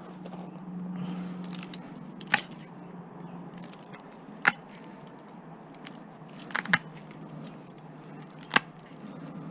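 Metal being cut with a hand cutting tool: four sharp clicks about two seconds apart as the blades work through, with a low hum in the first few seconds.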